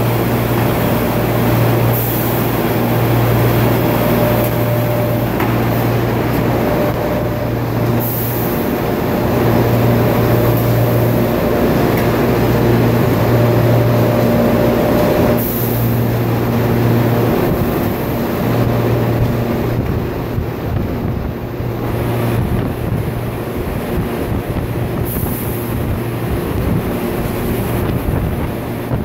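A 10-inch hot-rolling mill running with a steady, loud low hum from its roll stands and drives as a red-hot steel bar is rolled down to round. Brief high hisses come through now and then.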